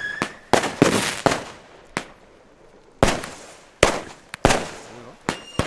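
Firecrackers going off one after another: about ten sharp bangs at uneven spacing, several followed by a short echo.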